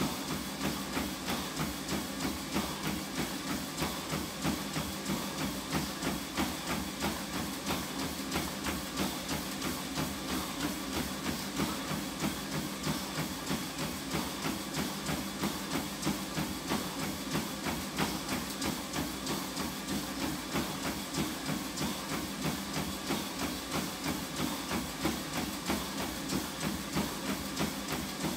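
Running on a treadmill: feet strike the moving belt in an even rhythm of about three steps a second over the steady running noise of the treadmill.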